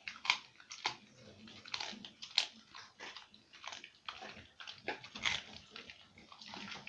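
A dog chewing and biting its food, with irregular sharp crunches and wet clicks of its jaws, several a second.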